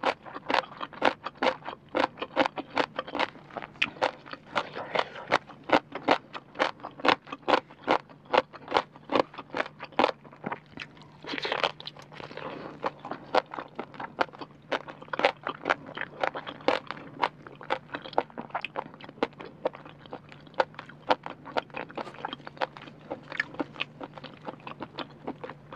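Close-miked eating: a steady run of crisp crunches, about three a second, as rehydrated celtuce stem strips (rau tiến vua) and octopus are bitten and chewed.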